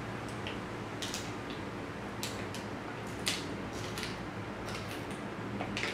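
Drinking from a thin disposable plastic water bottle: the bottle crinkles and crackles in scattered sharp clicks as it is sucked and squeezed empty.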